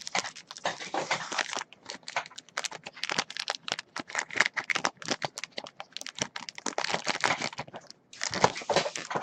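Card packaging being handled and torn open: rapid, irregular crinkling and tearing of wrapper material.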